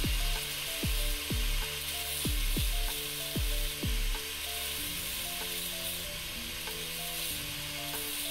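Angle grinder grinding the cracked metal edge of a waffle-maker plate to smooth it, a steady hiss. Background music with a kick-drum beat plays under it, the beat dropping out about halfway through.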